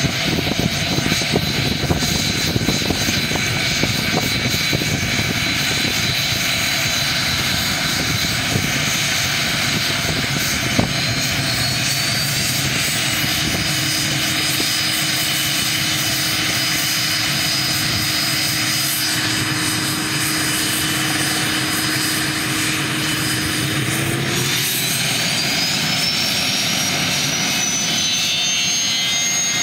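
Cessna Citation 501's twin turbofan engines, Pratt & Whitney JT15Ds, whining steadily as the jet taxis. About four-fifths of the way through, the whine rises in pitch as the engines spool up, then holds at the higher pitch.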